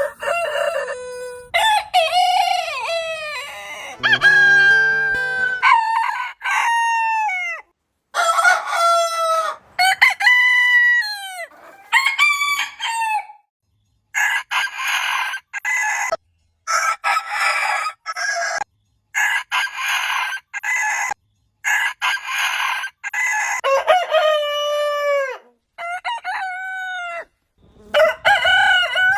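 Roosters crowing, one crow after another, about a dozen in all, with abrupt breaks between them. Each crow is a pitched call that falls away at its end.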